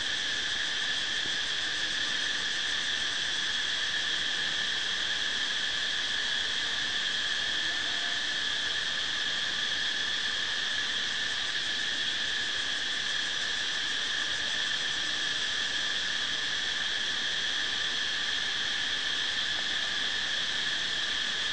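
Steady, high-pitched chorus of insects, holding an even shrill tone without a break.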